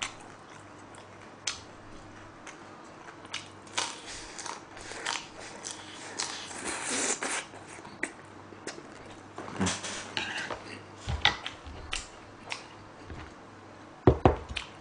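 Close-miked chewing and crunching of battered fried pork (tangsuyuk), with many short sharp clicks and crunches. Just before the end come a few loud knocks as ceramic bowls are lifted and set down.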